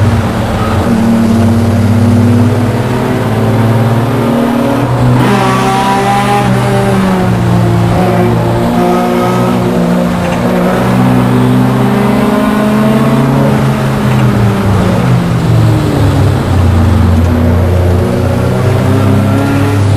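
In-car sound of a VW Rabbit race car's engine running hard on track, its note climbing and dropping in pitch several times as the car accelerates, shifts and slows for corners.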